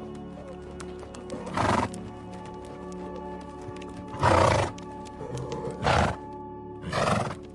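Background music with steady sustained tones, over which a horse calls in four short bursts, the loudest a little past halfway.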